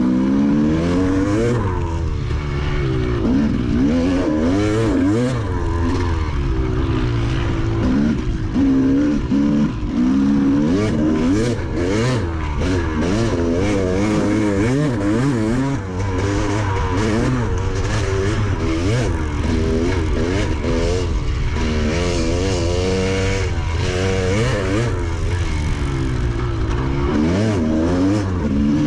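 Dirt bike engine running hard along the trail, its pitch climbing and dropping again and again as the throttle is worked, heard from a helmet-mounted camera.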